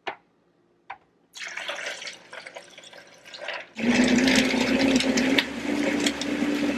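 Hot coffee poured from a mug into a Vitamix blender jar holding ice. About four seconds in, the Vitamix motor starts and runs steadily, blending the coffee and ice; its pitch steps up slightly a second and a half later.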